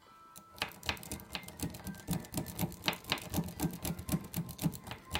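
Battery-powered electric pick gun rattling the pins of a small pin-tumbler lock: a fast, uneven run of sharp metallic clicks that starts about half a second in.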